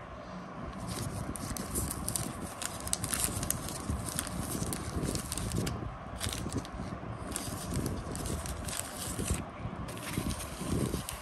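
Gloved hands handling a white paper trading-card packet: a run of short dry crackles and rustles as the wrapper is worked open, with brief pauses.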